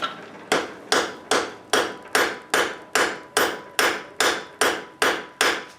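Blacksmith's hand hammer striking steel on an anvil: about fourteen even blows, roughly two and a half a second, each ringing briefly.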